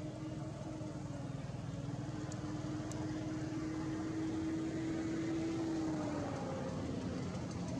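A motor engine running steadily with a low hum and rumble. Its pitch drifts slightly up and then dips about six and a half seconds in.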